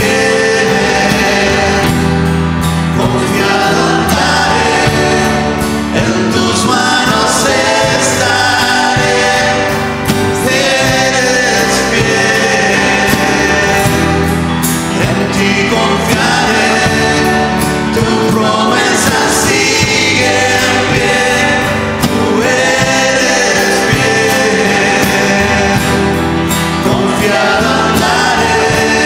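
Worship music: a choir and singers performing a Spanish-language praise song over a sustained accompaniment, the singing going on throughout.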